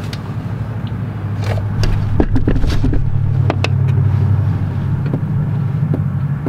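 A car engine running at a steady idle, its low note stepping up slightly about three seconds in. Several short knocks and clicks sound over it.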